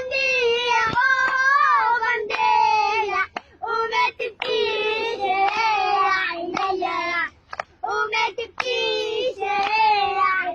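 A child singing an Arabic children's song solo and without accompaniment, in short phrases with brief breaths between them.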